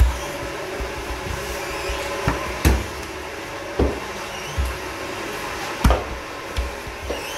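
Samarkand bread dough being pressed, lifted and set down by hand on a marble slab, giving irregular dull thumps and knocks, about eight in all, over a steady background hum.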